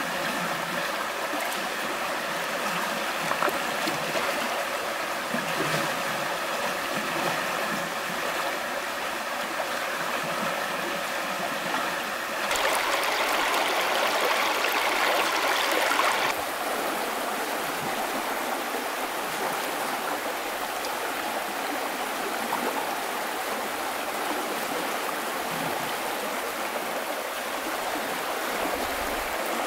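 Shallow stream rushing steadily over rocks and gravel. For about four seconds in the middle the rush grows louder and brighter, where the water ripples over stones right beside the microphone.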